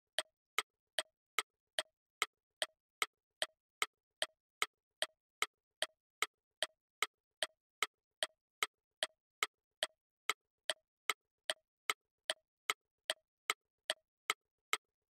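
Ticking-clock countdown sound effect: short, even ticks about two and a half times a second, each with a faint lower knock just after it, timing the answer period.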